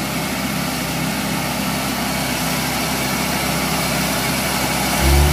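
Small rice combine harvester's engine running steadily as the machine crawls through deep, soft mud, bogging down under its load of rice sacks. About five seconds in there is a brief, loud low thump.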